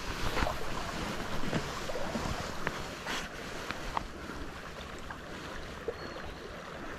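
Small stream flowing and rippling steadily, with a few faint clicks and a brief swish about three seconds in.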